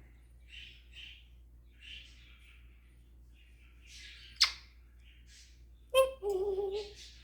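African grey parrot vocalizing: a run of soft, breathy chirps and clicks, a sharp loud click about four seconds in, then another click and a short two-tone whistle near the end.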